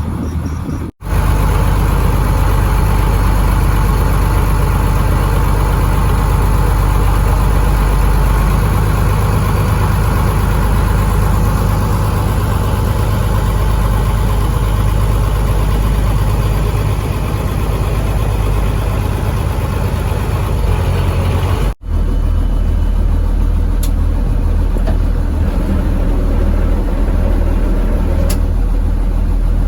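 Fishing boat's engine running steadily, a deep even drone under broad noise. It cuts out abruptly for an instant twice, about a second in and about two-thirds of the way through.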